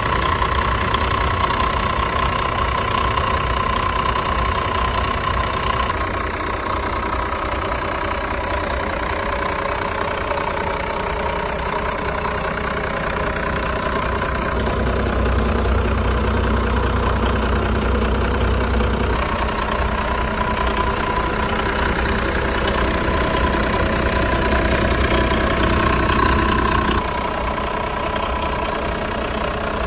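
Yamaha SX420KSH marine turbo-diesel engine running steadily, heard up close in the open engine bay: a low drone with a steady whine above it. It grows somewhat louder through the middle and drops back near the end.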